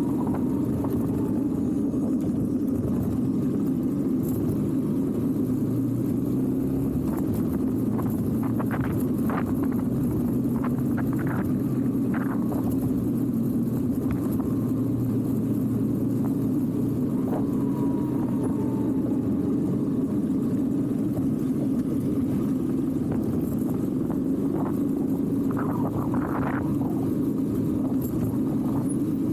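Italika motorcycle being ridden along a street: a steady engine rumble mixed with wind rush over the bike-mounted camera, broken by a few short clicks and a brief falling whine about halfway.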